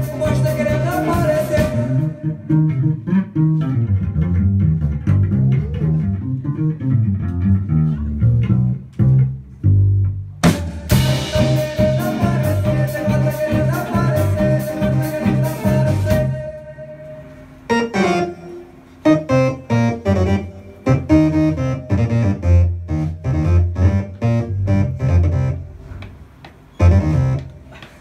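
Live band playing electric bass, guitar, keyboards and drums. After about two seconds the cymbals drop out and the bass carries a sparser passage; a cymbal crash about ten seconds in brings the full band back, and from about seventeen seconds the music breaks into short stop-start hits.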